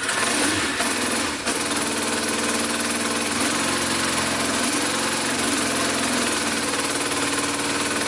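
Yamaha Diversion's air-cooled inline-four engine idling steadily on choke, with a brief dip about a second and a half in. It is running with the fuel pump disconnected, and the owner thinks it is not getting enough fuel.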